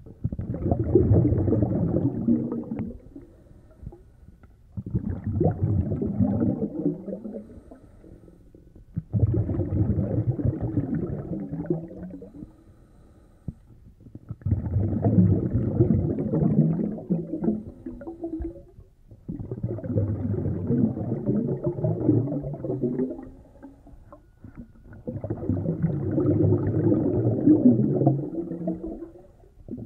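Low bubbling rumble of air bubbles in water, coming in bursts of about three to four seconds, roughly every five seconds.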